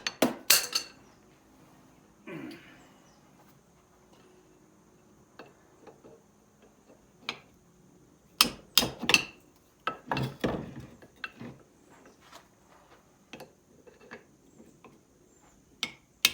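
Metal hand tools clinking, knocking and scraping against a rusty air compressor pump being taken apart: scattered sharp knocks, a short scrape about two seconds in, and the loudest cluster of strikes a little past the middle.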